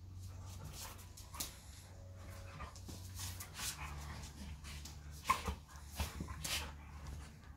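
A golden retriever and an Old English Sheepdog play-wrestling: whimpers, mouthing and scuffling noises, with a few sharp sounds in the second half, the loudest about five seconds in.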